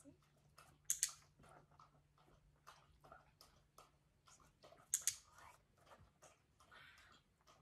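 Two sharp double clicks about four seconds apart, with faint taps and chewing sounds between them, as an Australian Shepherd moves from standing to sitting and back on a wooden platform.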